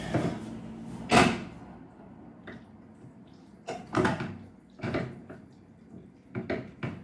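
Kitchen handling sounds: one sharp knock about a second in, then a string of lighter, irregular knocks and clatters, as of utensils, a cutting board or cookware being handled.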